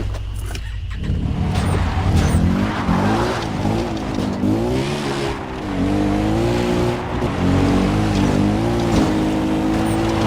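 Racing video game's car engine revving, climbing in pitch and dropping back several times as it shifts gears, with tyre squeal; near the end the engine holds a steady pitch.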